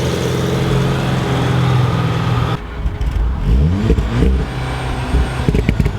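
Car engine running steadily. About two and a half seconds in the sound cuts to an engine revving up and down, with a few sharp clicks near the end.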